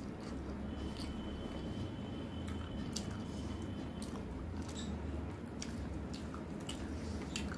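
Close-miked chewing of a mouthful of rice and chicken curry: wet mouth sounds with many short clicks and smacks. Fingers squish rice in curry on a steel plate, over a low steady hum.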